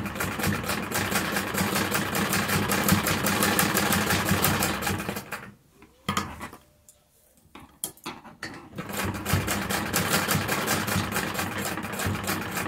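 Domestic sewing machine stitching a seam through knit fabric with rapid, even needle strokes. It stops about five seconds in, leaving a few faint clicks, and starts stitching again about three seconds later.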